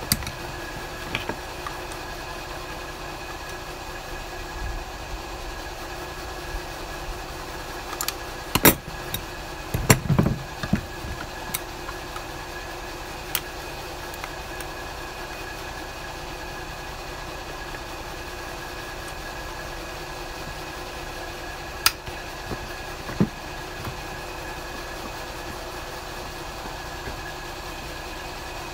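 Scattered metal clicks and knocks from locking pliers and hand tools handling a small plastic fuel pump being worked open, with a cluster of louder knocks about nine to eleven seconds in and two more a little past twenty-two seconds, over a steady background hum.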